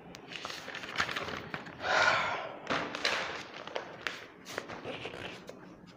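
Handling and movement noise from a person: scattered thumps, taps and knocks, with a short louder rustle-like burst about two seconds in.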